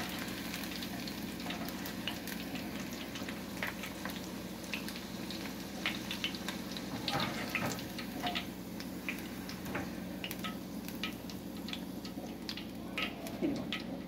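Chicken pieces deep-frying in hot oil, sizzling steadily with many scattered crackles and pops, while a wire strainer scoops them out of the oil.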